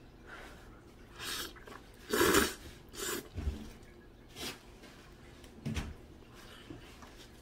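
A person slurping instant noodles and eating: several short slurps, the loudest a little over two seconds in, with a couple of low knocks in between.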